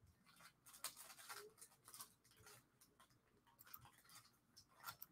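Near silence with faint, scattered small clicks.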